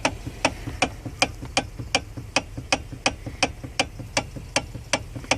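Steady, evenly spaced clicking, about two and a half clicks a second, over a low hum.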